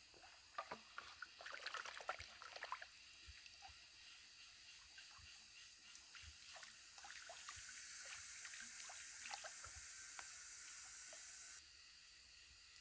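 Hands splashing and sloshing in shallow, muddy stream water: a busy patch of small splashes in the first few seconds, then scattered drips. About halfway through, a steady trickle of water sets in and cuts off suddenly near the end.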